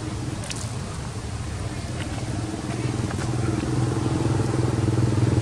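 An engine running with a steady, fast-pulsing hum that grows louder from about halfway through.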